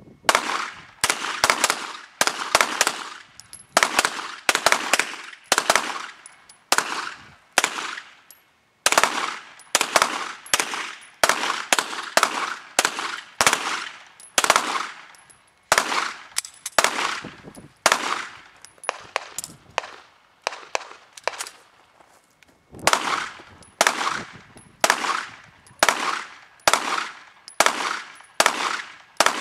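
Semi-automatic pistol firing a long string of single shots, about one to two a second, each shot ringing out with a short echo. The firing breaks off briefly a few times before carrying on.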